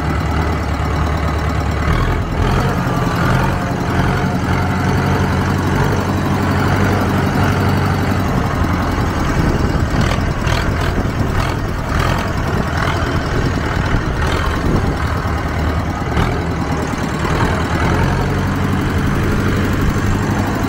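A farm tractor's diesel engine running steadily, heard close from the driver's seat. Its even low note wavers for several seconds in the middle.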